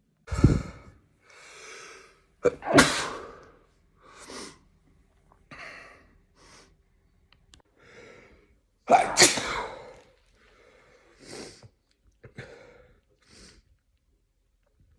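A person sneezing several times. The loudest sneezes come near the start and about nine seconds in, with quieter breaths between.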